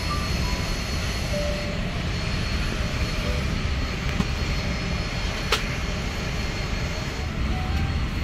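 Jet airliner noise: a steady rushing sound from the engines and airflow, with a single sharp click about five and a half seconds in.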